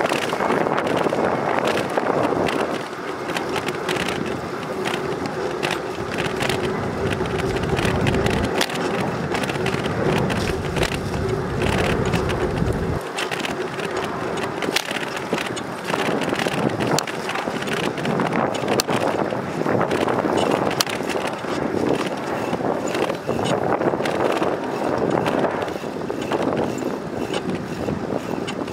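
Bicycle tyres rolling on a concrete path, with frequent rattling clicks from the moving bike and wind buffeting the microphone. The wind turns into a deep rumble for several seconds in the middle.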